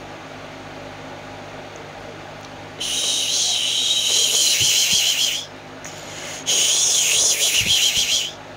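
A loud, high hissing whistle with a wavering tone, heard twice: it starts suddenly about three seconds in, lasts about two and a half seconds, stops, then comes back for just under two seconds.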